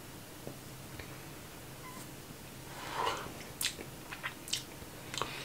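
A man puffing on a cigar and tasting the smoke: a soft breathy puff about three seconds in, followed by a quick run of small lip and tongue clicks.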